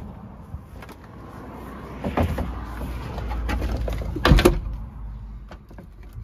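Knocks, clunks and scrapes from a car battery being handled and set into its battery well in the boot, loudest as a short cluster of knocks about four seconds in.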